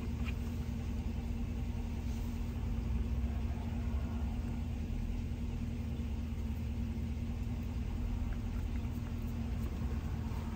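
Truck engine idling, heard from inside the cab as a steady low rumble with an even hum.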